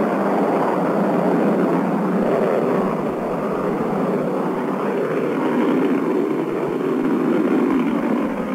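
Atlas rocket engines of the Mercury-Atlas 6 launch vehicle running at lift-off, a steady dense rumble. It comes through an old broadcast recording, thin, with no deep bass.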